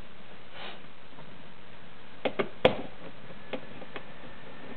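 A Torx screwdriver clicks against screw heads in a plastic car speaker housing: three sharp clicks in quick succession about two seconds in, then two fainter ticks, over a steady background hiss.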